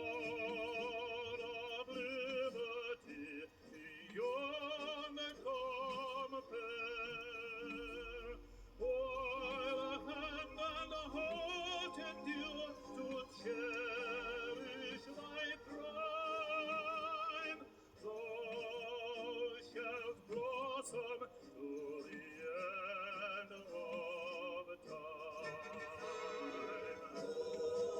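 Operatic-style singing with wide vibrato over orchestral accompaniment, played from a record on a record player.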